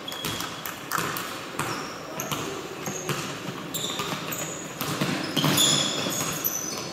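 Basketball game in play: a ball bouncing on the court with repeated knocks, among many short, high-pitched sneaker squeaks on the floor.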